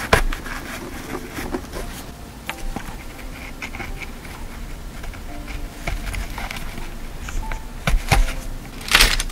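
Close-up handling of metal earrings as they are pressed into the velvet slots of a jewellery organizer box: many small clicks and taps with light clinks of the metal pieces. There is a louder rustle or scrape at about 9 seconds.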